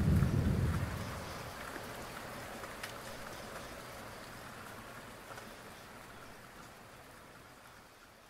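Steady rain falling, with a low roll of thunder in the first second; the rain fades out gradually.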